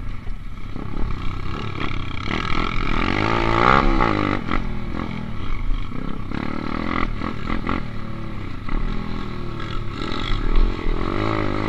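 Dirt bike engine revving hard and easing off again and again, its pitch rising and falling as the rider accelerates and shifts over the rutted motocross track. Heard from a helmet-mounted camera, with wind rumbling on the microphone.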